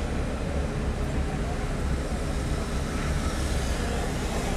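Steady low rumble of a car's engine and tyres, heard from inside the cabin.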